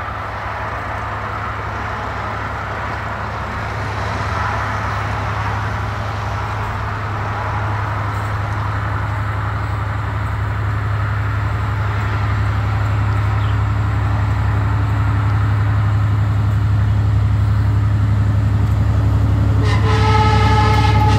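Croatian series 2044 diesel locomotive with its EMD diesel engine running on approach, a steady low drone growing louder as it draws near. Near the end the locomotive's multi-tone horn sounds a long chord.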